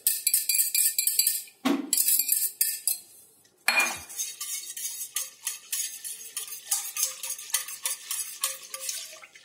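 Wire whisk clicking against a stainless steel pot as milk is stirred, a steady run of light metal ticks several times a second. Before that comes metal-on-metal tapping and scraping in a steel bowl, a dull knock about two seconds in, and a short lull before the whisking starts.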